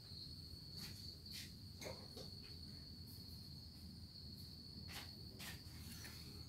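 Faint, steady high-pitched trill of a cricket, with a few soft handling clicks.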